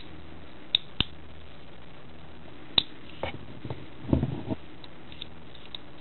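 Opened Shimano trigger shifter being worked by hand: a few sharp, small clicks of its lever and ratchet mechanism about a second or two apart, then a short cluster of softer clicks and knocks and a few light ticks, as the pawl is tested for whether it now catches on the ratchet teeth.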